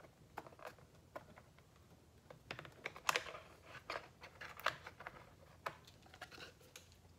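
Faint, irregular light clicks and rattles of hand work: the front footpad's wiring connector being worked out of its socket on a Onewheel XR, with the loose wooden footpad knocking lightly as it is held up.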